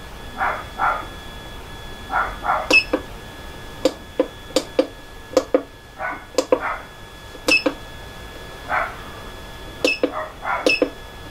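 Control unit from a vibration-plate exercise machine, its buttons being pressed: a dozen or so short sharp beeping clicks scattered through, with softer short sounds in pairs between them and a faint steady electronic whine.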